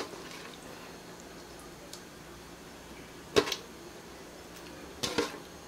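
Raw chicken pieces put into a wok by hand: a few sharp knocks against the pan, the loudest about three and a half seconds in and a quick pair about five seconds in, over a low steady hiss.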